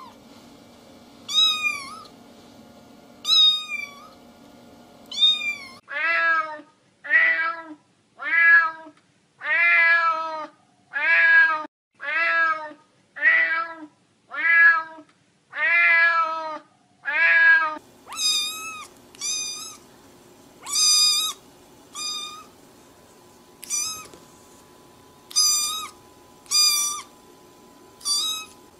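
Domestic cats meowing: short, high-pitched mews about every two seconds, then from about six seconds in a quick run of lower meows, a little under one a second. From about eighteen seconds in come high mews again, now with a faint steady hum behind them.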